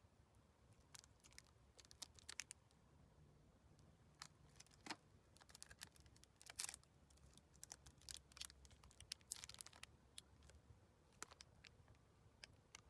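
Near silence with faint, scattered clicks and rustles over a low hum.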